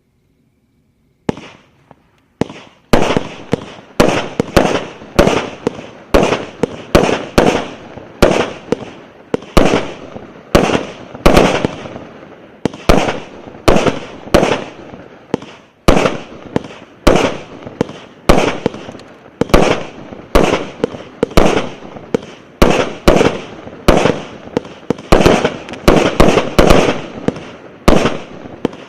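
A 64-shot, 0.8-inch consumer firework cake (VH8160) firing: a rapid run of sharp bangs at about two a second, each with a short fading tail, starting about a second in.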